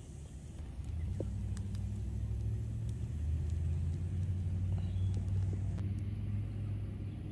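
Low, steady engine hum of a motor running somewhere near, building about a second in and holding steady, with a few faint clicks over it.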